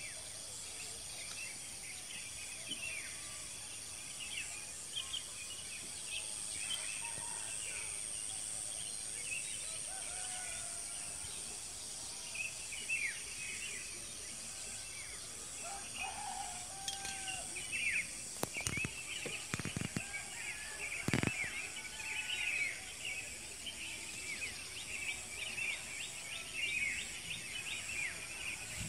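Evening countryside ambience: a steady high-pitched insect drone under many short bird chirps, which get busier in the second half. A few sharp knocks come about two-thirds of the way through.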